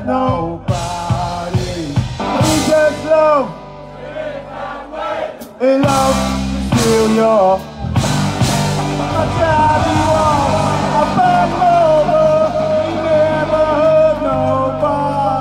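A live band playing a dub-style rock cover with a singer's voice over it. The bass and beat thin out and the music drops in level for about two seconds, then the full band comes back in loud about six seconds in.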